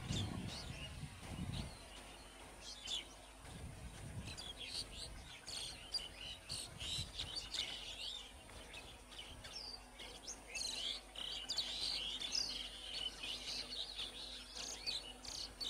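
Birds chirping and calling over and over, in short high notes. Under them, the low rumble of a passing electric multiple-unit train fades away in the first couple of seconds.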